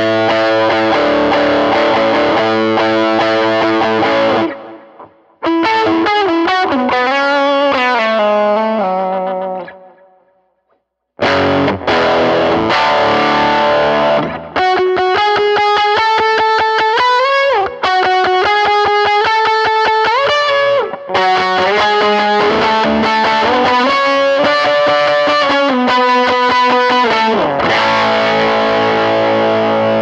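Gretsch hollow-body electric guitar through an overdriven HX Stomp preset with a vibe, tape delay and hall reverb. A chord rings out, then comes a short picked single-note line, and after a brief stop about ten seconds in, a driving chord part with rapid, even, partly palm-muted picking and a few pitch slides.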